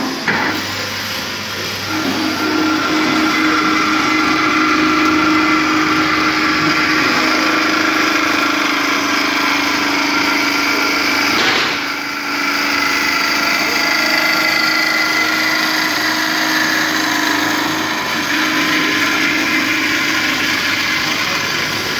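Metal-cutting band saw running and cutting steadily, a low hum with a higher whine over it. About halfway through the sound dips briefly with a sharp click, then the cutting goes on.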